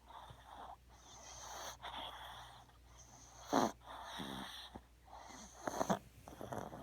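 A small puppy snoring loudly in her sleep: a quick run of rasping, wheezy breaths with a whistling edge, broken by two louder snorts, one about halfway through and one near the end.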